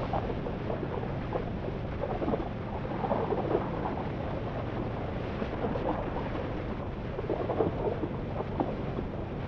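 Harley-Davidson Forty-Eight's 1200 cc V-twin running steadily at cruising speed, mixed with wind rushing over the microphone.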